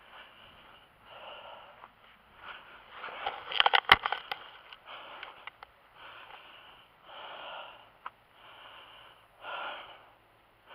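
A man breathing heavily close to the microphone, a short noisy breath every second or two, winded from heavy work in the heat. A quick cluster of sharp clicks and knocks about four seconds in is the loudest part.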